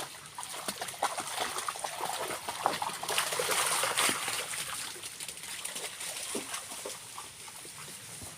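Small waterfall's water trickling and splashing, with a run of irregular splashes that grows louder about a second in and eases off after the middle.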